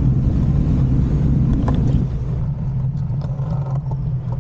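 Road bike rolling across pavement with wind rumbling on the microphone, over a steady low engine hum. The rumble eases about two seconds in, leaving a few light clicks.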